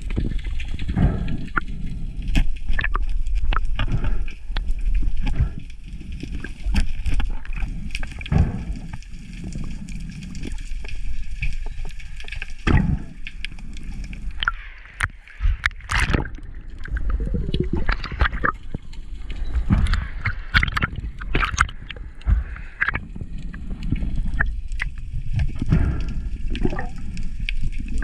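Underwater water noise heard close up through a camera housing: churning and gurgling water with many irregular knocks and clicks as a large speared fish thrashes and is handled against the camera.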